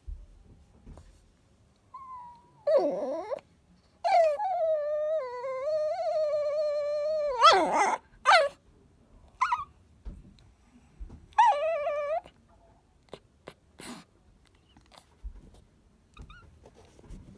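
A Chihuahua whining and yipping in a string of drawn-out, wavering, talk-like calls, one of them about three seconds long. It is whining to have its ball fetched out from under the furniture.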